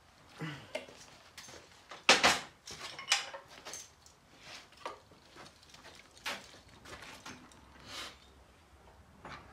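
A series of irregular knocks and clinks, like hard objects being handled and set down, the loudest about two seconds in.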